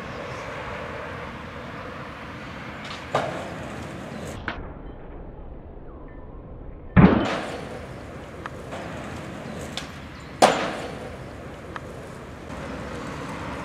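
Skateboard jumping an eight-stair set: a few sharp clacks of the board on hard ground. The loudest is a heavy low slap about seven seconds in, just after the skater is in the air: the board landing at the bottom of the stairs. Another sharp crack comes about three seconds later.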